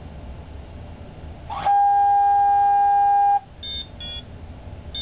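Bio-Rad Experion priming station's electronic beeper sounding its default end-of-priming signal: one long steady beep of nearly two seconds starting about a third of the way in, then two short beeps near the end.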